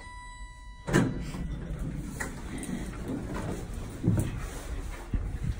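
A steady electronic tone for about a second, then elevator doors sliding open with a sudden rumble, followed by a few knocks and scuffs.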